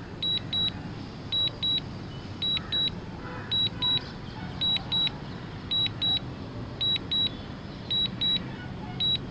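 DJI drone remote controller sounding its Return-to-Home alert: pairs of short high beeps repeating about once a second, the sign that the drone is flying itself home under RTH.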